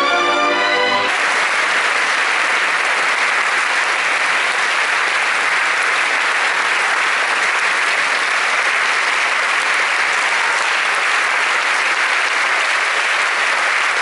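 A symphony orchestra ends a piece on a held chord about a second in, and a concert-hall audience breaks into steady, sustained applause.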